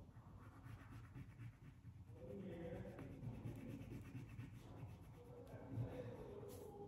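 A crayon rubbing back and forth on paper as a letter is coloured in: a faint, continuous scratching.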